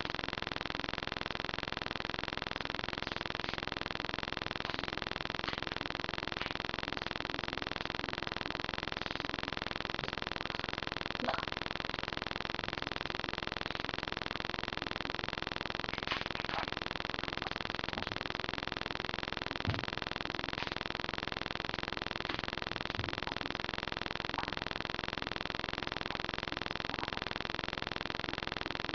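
Steady hiss of a webcam microphone's background noise, with a few faint, brief clicks scattered through.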